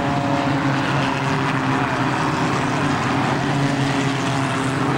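Engines of a pack of small stock cars running together at race speed around the oval, a steady mix of several engines.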